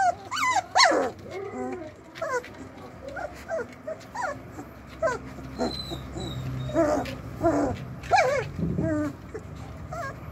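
Litter of 24-day-old Doberman puppies whimpering and whining: many short, high cries that bend up and down in pitch, coming one after another and sometimes overlapping.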